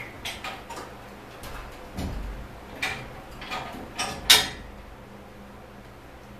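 Metal clicks and knocks from an engine-stand rotisserie as the aircraft fuselage mounted on it is turned by hand. There is a dull low thump about two seconds in and the loudest knock a little past four seconds, after which the knocking stops.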